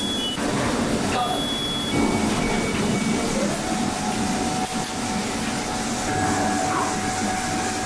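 PCB assembly-line machinery running: a steady machine hum with a few short electronic beeps, and a steady tone that starts about halfway through.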